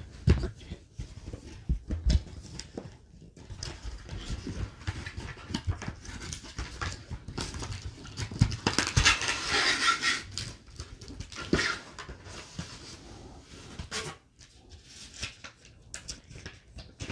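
Cardboard packaging being opened by hand: rustling and scraping with light knocks as the inner box slides out of the carton, loudest for a couple of seconds past the middle.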